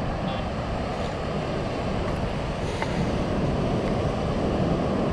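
Steady wind and ocean surf noise, with wind rumbling on the microphone.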